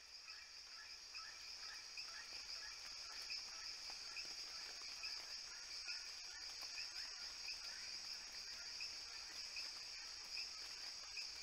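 Steady high-pitched insect chorus, like crickets trilling, with faint quick chirps repeating underneath; it swells up slightly over the first couple of seconds, then holds level.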